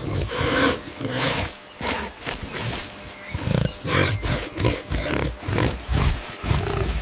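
An animal calling in an irregular series of short, rough, growl-like calls, roughly two a second, that cut off suddenly at the end.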